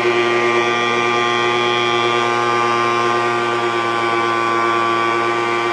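Craftsman handheld gas leaf blower's two-stroke engine and fan running steadily at an even pitch on a test run after a new carburetor and fuel lines were fitted, showing the repair has it running again.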